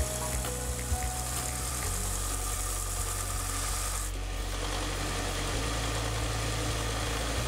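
Belt sander running steadily while a small metal part is held against the belt and ground back to a marked line. The grinding hiss eases abruptly about four seconds in.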